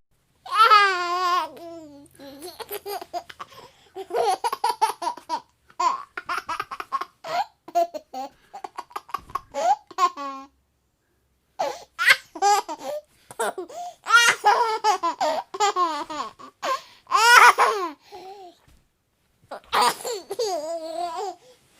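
A baby laughing in repeated runs of quick, high-pitched laughs, with two short pauses, one about ten seconds in and one near the end.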